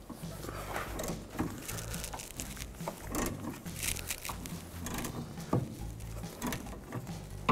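Hand ratchet and socket working a nut off a rusty sway bar link stud: irregular light metallic clicks and taps over a low steady hum.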